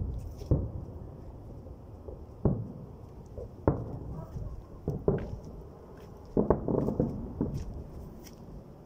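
Distant fireworks salute: about seven dull booms of shells bursting at uneven intervals, several in quick succession near the end, muffled by distance.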